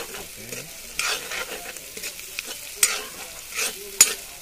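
Sliced onions sizzling in hot oil in a black kadai while a metal spoon stirs them, scraping and clinking against the pan several times over a steady hiss. The sharpest clink comes about four seconds in.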